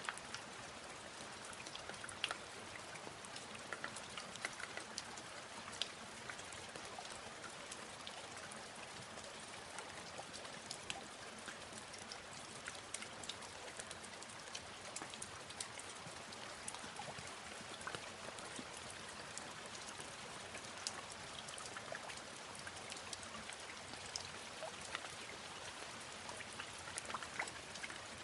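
Steady rain falling, with individual drops striking sharply here and there.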